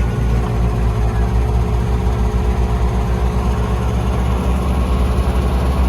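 A car engine idling steadily, a low, evenly pulsing running sound.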